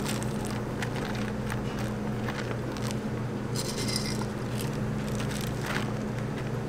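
A steady low machine hum, with scattered light crackles and clicks as chocolate cereal rings and Oreo cookies are pressed by hand into whipped cream on a waffle cone, and a brief rustle just before the middle.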